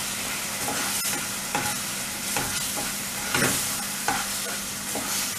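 Onions and sauces sizzling in a nonstick wok while a plastic slotted spatula stirs through them, with a short scrape against the pan every half second to a second over a steady sizzle.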